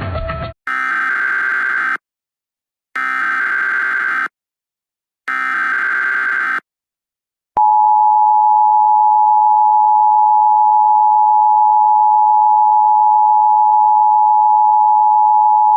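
Emergency Alert System SAME header: three digital data bursts, each about a second and a half long with a second of silence between. About seven and a half seconds in, the EAS two-tone attention signal (853 and 960 Hz) starts and sounds as one loud, steady dual tone.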